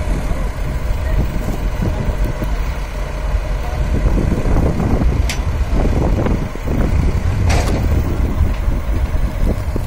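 Diesel engines of a JCB tracked excavator and a tipper truck running steadily with a low rumble, with a sharp click about five seconds in and a short hiss about seven and a half seconds in.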